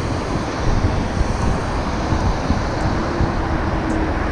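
Wind buffeting the camera's microphone: a steady, ragged rush, heaviest in the low end.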